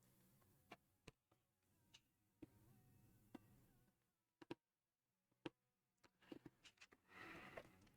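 Near silence, broken by faint scattered clicks and taps of small pieces being handled, with a brief rustle about seven seconds in.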